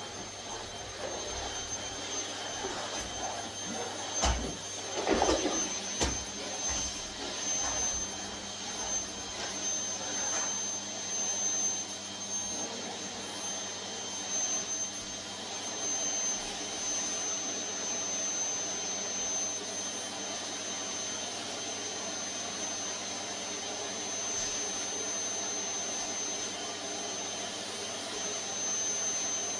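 Canister vacuum cleaner running steadily, a constant drone of suction with a high-pitched motor whine. A few knocks and a louder swell of the suction come about four to six seconds in.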